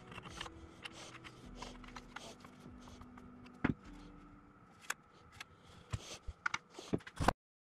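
A Stanley transitional hand plane, wooden body and cast-iron parts, being handled and turned over on a workbench: scattered light clicks and taps, with a few sharper knocks in the second half.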